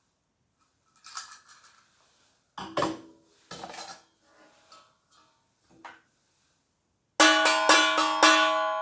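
Scattered clatter and knocks of small objects being handled, then about seven seconds in a stringed instrument strummed in five or six quick strokes, its chord left ringing and fading.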